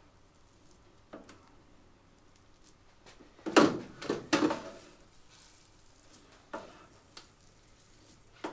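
A few knocks and a short metallic clatter, loudest about three and a half seconds in, as the electric uncapping planer is set down on and handled against the metal uncapping tray. Otherwise quiet, with a few faint taps as the comb is worked.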